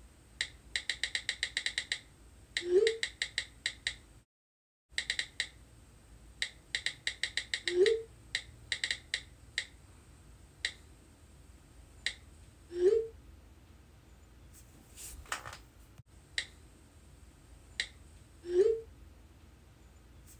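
Phone keyboard click sounds in quick bursts of typing. A short rising text-message tone follows each burst, four times in all.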